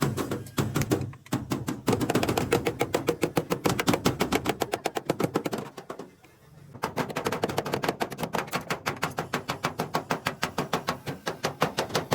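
Rapid hammering, about seven blows a second in an even rhythm, stopping briefly about six seconds in and then going on. It is typical of panel-beating a damaged truck cabin's metal.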